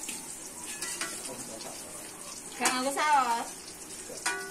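Wontons frying in hot oil in a wok, a steady sizzle, with a metal ladle stirring them. A voice cuts in loudly for about a second around the middle and again near the end.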